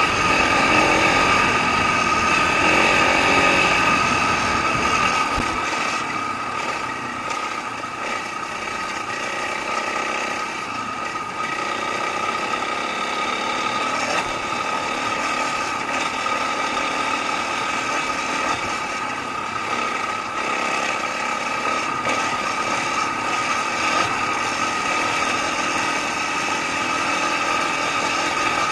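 Dirt bike engine running steadily while riding a dirt trail. A low rumble is heavier for the first five seconds or so, then the sound settles.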